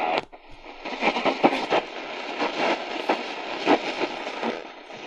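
RADIWOW R-108 portable radio's speaker giving medium wave static, a steady hiss with irregular crackles, as it is tuned up through frequencies with no clear station.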